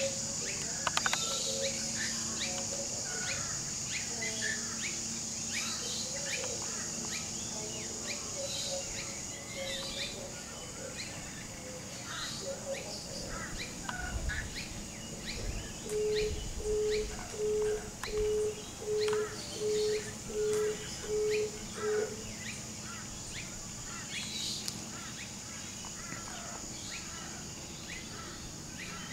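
Birds chirping in short, scattered calls over a steady high insect drone. Partway through comes a run of about nine evenly spaced beeps on one low pitch, louder than the rest.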